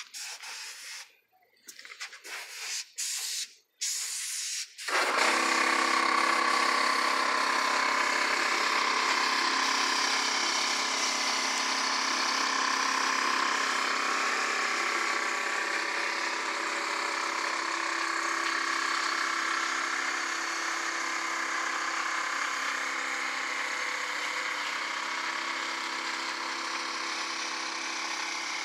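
Paint spray gun hissing in several short bursts, then from about five seconds in a loud, steady motor drone with several unchanging tones.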